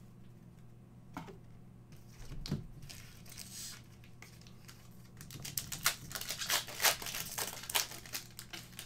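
A foil trading-card pack being torn open and crinkled by hand: a few soft clicks early, then a fast run of crackles from about halfway through.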